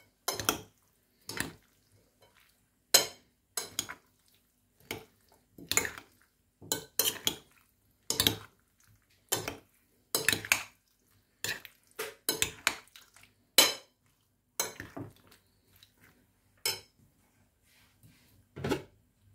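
Two metal spoons clinking and scraping against a ceramic bowl as boiled eggplant cubes are tossed with sliced onion, herbs and marinade. Irregular sharp clinks come every half-second or so, thinning out near the end as the mixing stops.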